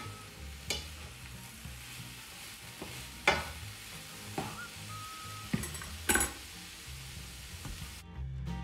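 Sliced mushrooms and leek sizzling in oil in a frying pan while being stirred with a spatula, which knocks sharply against the pan several times. Background music comes in near the end.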